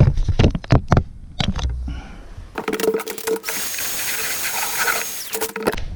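A few knocks and clicks of handling, then a household vacuum cleaner's motor switches on about two and a half seconds in, runs with a steady high whine for about three seconds, and cuts off just before the end.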